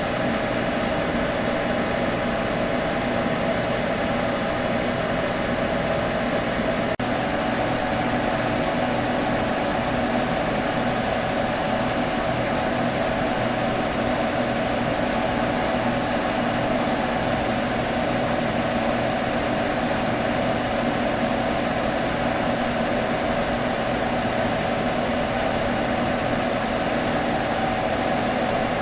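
Computer running, with a steady fan whir and hum that holds a few unchanging tones. There is one brief dip about seven seconds in.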